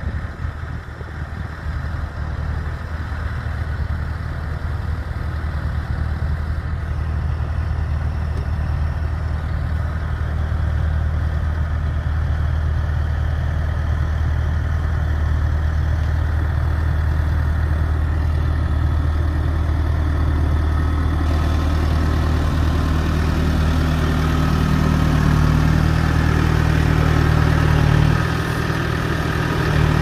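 A 2012 New Holland T6040 tractor's four-cylinder diesel engine running steadily as it pulls a two-furrow mounted plough through the soil. The low engine hum grows slowly louder, then drops away a couple of seconds before the end.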